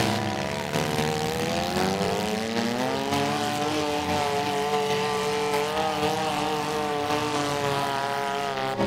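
Six-cylinder demolition derby car engines revving hard, spinning their tyres. The main engine's pitch climbs steadily over the first few seconds, then holds high near full throttle.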